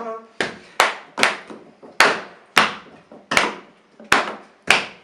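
Hand percussion played alone, about eight loud, irregularly spaced strikes, each ringing out briefly.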